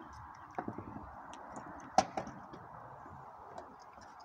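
Skateboard knocking against a concrete driveway: a small knock under a second in, then a sharp, loud clack about two seconds in with a lighter one just after, over a steady faint hiss.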